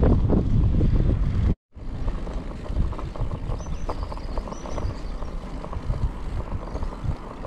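Wind buffeting a handlebar-mounted GoPro's microphone while cycling, mixed with tyre and road rumble. It cuts out completely for a moment about one and a half seconds in, then comes back quieter and gustier.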